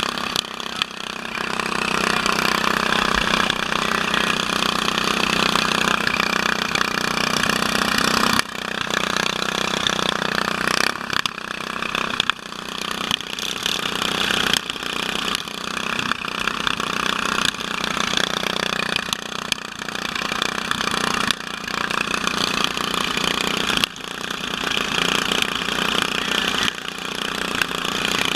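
Several riding lawn mower engines running together, the nearest one loud and close. The engine sound changes suddenly a few times.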